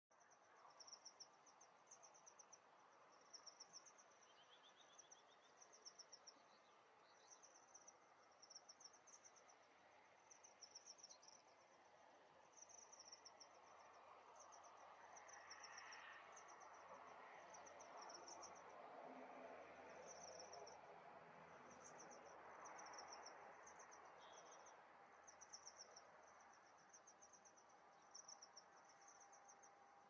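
Faint insect chirping, cricket-like: short high-pitched pulsed trills repeating about every second or two, over a soft outdoor hiss that grows a little louder in the middle. A few faint, brief bird notes come in now and then.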